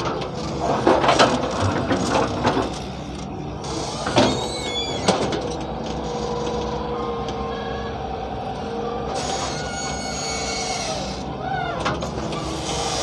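Hyundai 170 excavator working: the engine runs steadily while sharp metal clanks and knocks come several times in the first five seconds, and a steady whining tone holds through the middle.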